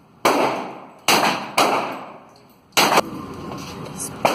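Thompson submachine gun (Tommy gun) firing .45 ACP rounds one at a time: about five sharp reports at uneven intervals, each echoing in the indoor range.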